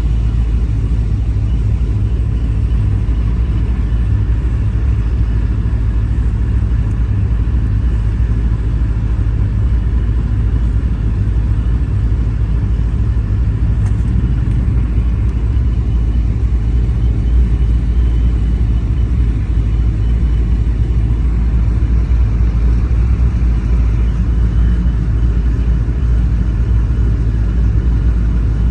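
V8 car engine and exhaust making a steady low rumble, held at a constant pitch with no revving.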